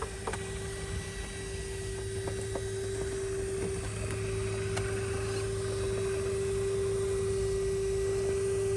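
Electric motor of an RC rock crawler whining at a steady pitch at low speed, with a few light clicks and knocks in the first half.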